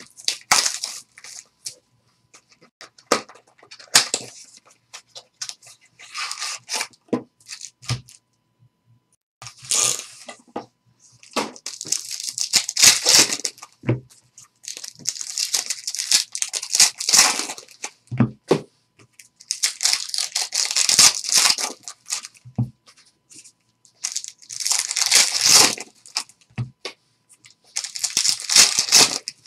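Panini Select basketball card pack wrappers being torn open by hand: about five long ripping, crinkling tears in the second half, with short clicks and scuffs of card and box handling before them.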